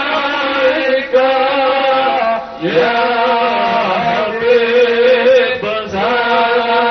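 A man's voice chanting Islamic dhikr (dzikir manaqib) through a microphone. He holds long sustained notes and slides up and down between pitches, pausing only briefly for breath.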